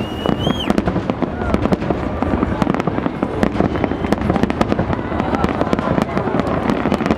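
Fireworks display: a dense, continuous barrage of overlapping aerial shell bursts and crackling, many bangs a second over a low rumble, with a brief high whistle at the start.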